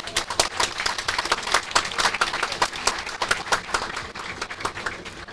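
Crowd applauding, a dense patter of many hands clapping that thins and fades near the end.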